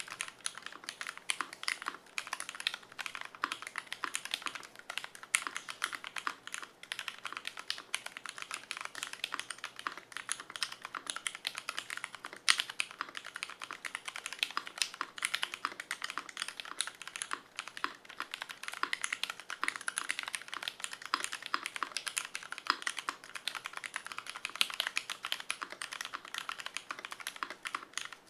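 Continuous fast typing on a custom mechanical keyboard: lubed Cherry MX Vintage Brown tactile switches on a brass full plate with no foam, under GMK keycaps. Dense, crisp key clacks with the occasional louder stroke.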